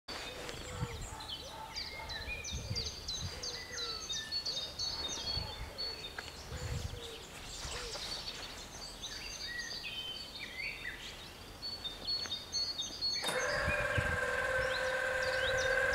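Birds singing and chirping. About thirteen seconds in, the level crossing's warning signal starts abruptly with a steady ringing tone of several pitches and becomes the loudest sound as the barriers begin to lower.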